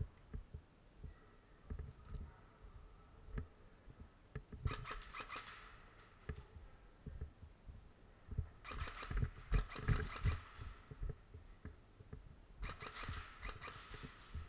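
Three bursts of rapid airsoft fire, each one to two and a half seconds long, with irregular low thumps and knocks of footsteps and gear in between.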